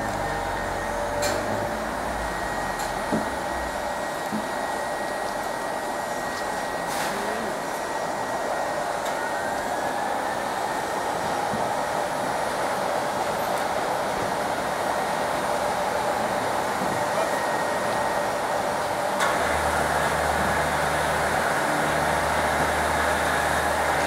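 Asphalt-heating road-repair machinery running with a steady blower-like rush and a thin high whine, which rises and settles twice. A deeper engine hum joins about nineteen seconds in.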